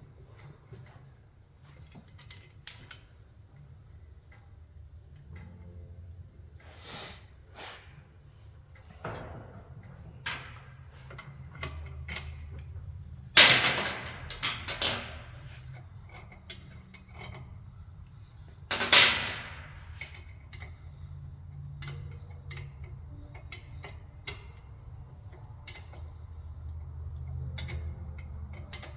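Metal tools and brake parts clinking and knocking during rear disc brake caliper work, with two loud metallic clatters near the middle.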